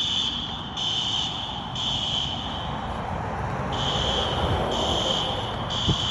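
Building fire alarm horns, System Sensor SpectrAlert Advance horn strobes, sounding the temporal-3 evacuation pattern: three high-pitched blasts, a pause of about a second, then three more.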